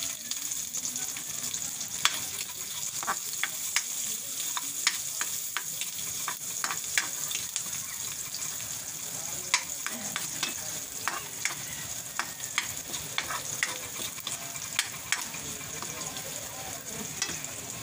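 Garlic cloves sizzling as they sauté in leftover fish-frying oil in a wok, stirred with a metal spatula. A steady high sizzle runs throughout, broken by frequent sharp clicks and pops.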